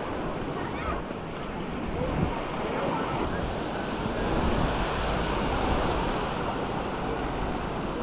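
Small sea waves breaking and washing up on a sandy beach, a steady wash of surf with wind buffeting the microphone. Faint voices of people on the beach mix in.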